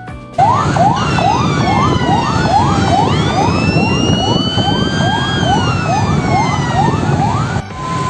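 Emergency-vehicle sirens: a fast rising sweep repeating about twice a second, with a slower siren tone gliding up and down above it, over a rumble of vehicle noise. It starts abruptly and cuts off abruptly near the end.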